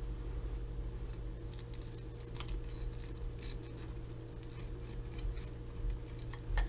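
Knife cutting through a baked quiche in a glass pie dish: a few faint, scattered clicks and scrapes of the blade, over a steady low hum.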